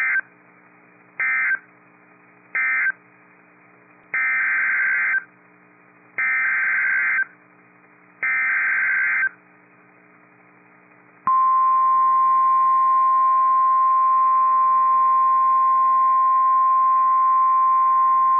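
NOAA Weather Radio Emergency Alert System tones: three short buzzy data bursts, the end-of-message code of the previous warning, then three one-second SAME header bursts announcing a new warning. About eleven seconds in, the steady 1050 Hz warning alarm tone starts and holds.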